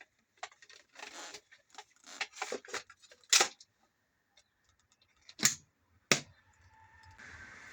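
Sharp clicks and knocks of hard plastic parts being handled and fitted together, the loudest three near the middle and past it. A faint steady hum starts near the end.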